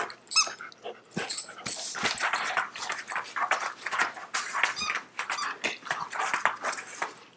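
A German shepherd and a golden retriever scuffling and tugging over a stuffed toy: irregular quick clicks and knocks of paws and claws on the floor, with a few short high squeaks about half a second in.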